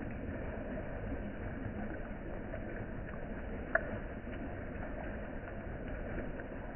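Rain falling on a pond's surface: a steady wash of water noise with scattered small drop plinks, and one sharper click about halfway through.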